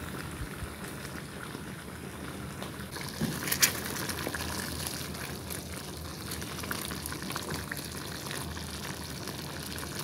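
Thick, creamy sausage stroganoff sauce bubbling steadily as it boils in a pan, reducing so the sauce thickens. A wooden spoon stirs through it, with one brief knock about three and a half seconds in.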